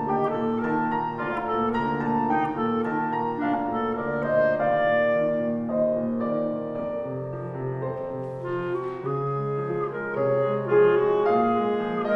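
Clarinet and grand piano playing together: the clarinet carries a quick-moving melody of short notes over the piano accompaniment.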